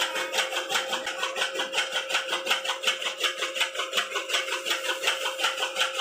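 Electric chaff cutter running, its motor humming steadily while the bladed flywheel chops hand-fed green fodder in a rapid, even chopping rhythm of several cuts a second.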